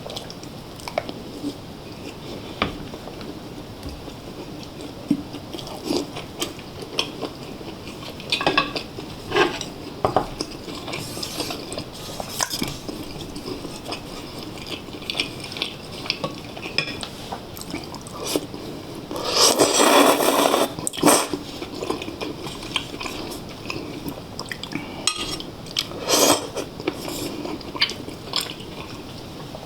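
Spoon and chopsticks clinking and tapping against bowls during a meal, with quiet chewing between the clinks. About two-thirds of the way through comes a louder, noisier stretch of about two seconds.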